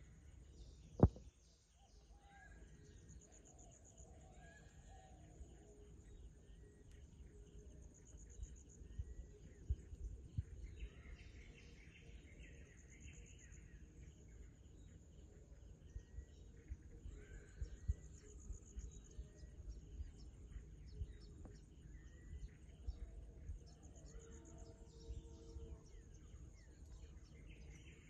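Faint rural ambience: small birds chirping here and there over a steady high pulsing buzz and a low rumble, with one sharp click about a second in.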